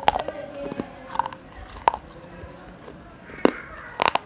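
Close-up crunching bites into pieces of a baked clay kulhad cup: about five sharp, crisp cracks spread across a few seconds, the loudest two in the second half.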